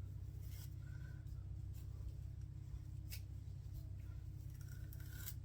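Faint rustling and light clicks of hair being handled, a few scattered short ones, over a steady low hum.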